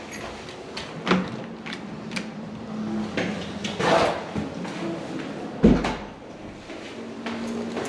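Footsteps going down a tiled indoor stairway, with irregular knocks and clicks and one heavier thud a little over halfway.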